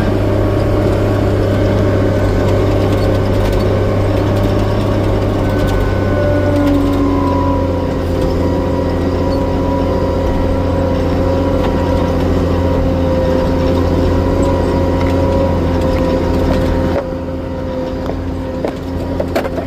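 Log skidder's diesel engine running steadily as the machine drives. Its note drops slightly about seven seconds in, and it gets quieter about three seconds before the end, with a few short knocks near the end.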